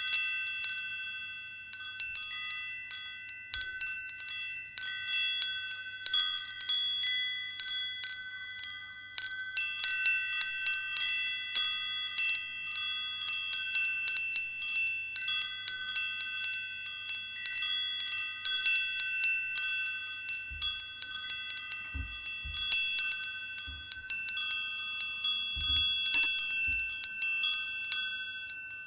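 Wind chimes ringing, struck again and again at irregular moments, so several tuned tones sound on and overlap. Near the end the ringing starts to die away.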